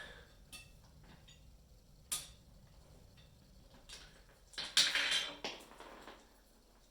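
Sharp metal clicks of a socket wrench and wheel-lock key working on a car's lug bolt, with one louder burst of metallic clatter a little past the middle.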